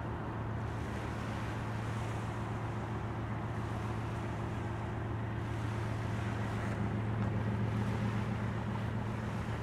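Diesel freight locomotives working under throttle to bring a long train back up to speed, heard as a steady low engine drone, over a hiss of wind and lapping waves.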